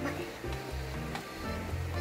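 Background music with held notes over a shifting bass line, and one short click about a second in.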